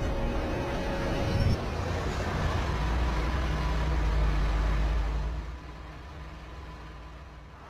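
Low, steady rumble of a heavy truck's engine, dropping away about five and a half seconds in.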